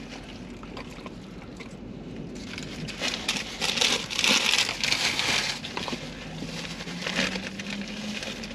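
Paper and plastic food wrappers crinkling and rustling as they are handled, loudest from about three to five and a half seconds in.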